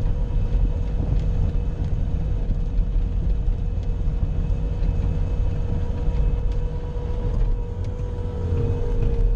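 Bobcat skid-steer's diesel engine running steadily under load while it pushes snow with a plow blade, heard from the cab, with a steady whine over the low engine rumble.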